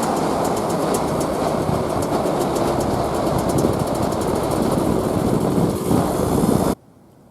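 1988 Kawasaki KMX 200 single-cylinder two-stroke dirt bike being ridden: its engine running under way, mixed with wind and road noise and a fast rattle of small ticks. The sound cuts off suddenly near the end.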